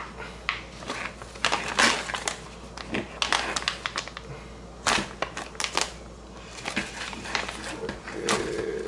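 Plastic pouch with a zip-lock seal being worked open by hand: crinkling plastic with irregular sharp clicks and snaps as the seal is picked at.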